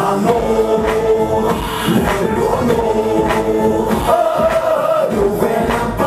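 Live music through a stage sound system, with amplified singing holding long, wavering notes over the backing music.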